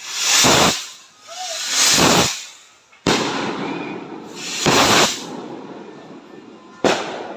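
Fireworks going off: three hissing whooshes that swell and fade, about half a second, two seconds and five seconds in, and two sharp bangs, about three seconds and seven seconds in.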